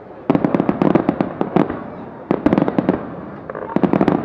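Fireworks display: rapid volleys of sharp bangs and crackling pops, coming in three dense clusters, about a second in, just past two seconds, and near the end.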